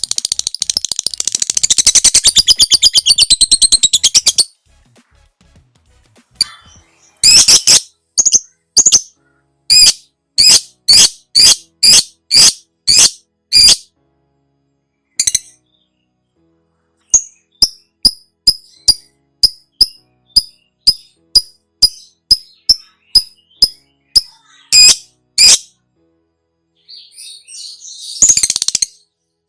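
Lovebird chattering: a dense, rapid trill of calls for the first four seconds, then a string of loud, sharp, high-pitched calls about one a second. After a short gap comes a faster run of short chirps about two a second, and more rapid chatter near the end. This is the long 'ngekek' chattering call that lovebird keepers play to set their own birds calling.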